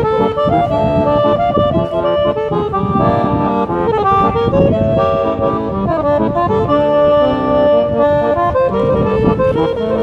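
Busker's accordion playing a melody of held notes over sustained chords.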